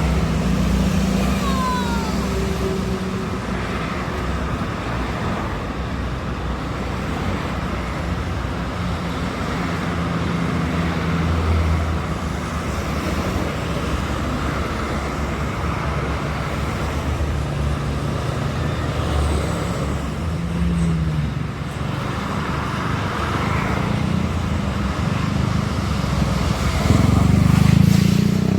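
Road traffic on a highway: engines and tyres of passing vehicles, heavy vehicles among them. It gets louder as one passes close near the end.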